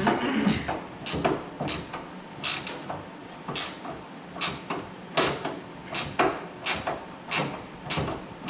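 Ratchet wrench clicking in short repeated strokes as a hood hinge bolt is worked loose, roughly one stroke every half second to a second.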